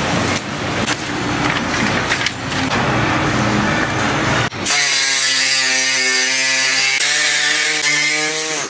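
Masking tape being torn and peeled off a truck's sheet-metal fender, a rough crackling. About four and a half seconds in, a handheld pneumatic tool starts abruptly and runs at a steady pitch with a hiss, smoothing the freshly cut edge of the snorkel hole, then stops just before the end.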